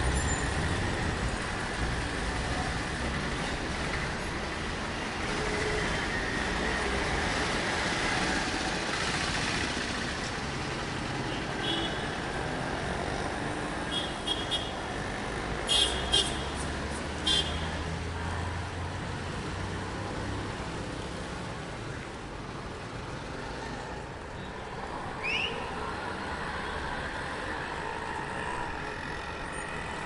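Road traffic: a steady wash of passing cars and trucks with low engine rumble, and a few short, sharp high-pitched sounds clustered about halfway through.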